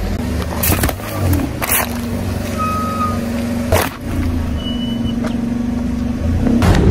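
Car engine running while its tyre slowly rolls over and crushes objects: toothpaste tubes, then an aluminium drink can. Five sharp cracks and crunches are spread across the low hum of the engine, the loudest just before the end.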